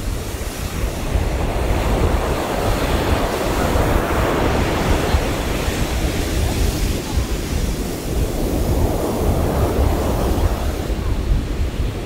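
Ocean surf breaking and washing up a sandy beach, swelling and easing twice, with wind rumbling on the microphone.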